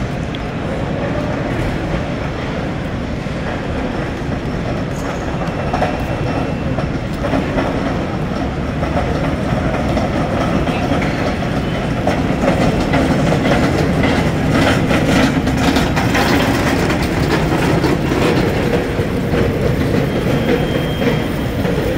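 Loud, steady background din of a busy airport check-in hall, getting louder about halfway through.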